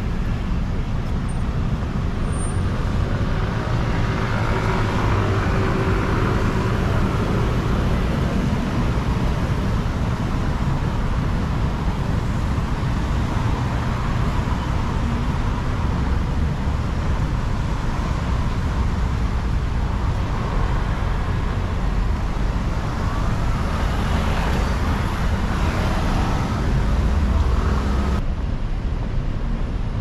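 City traffic on a wide road: a steady rumble of cars and other vehicles with tyre hiss on the wet asphalt, swelling as vehicles pass close, about four seconds in and again about twenty-four seconds in.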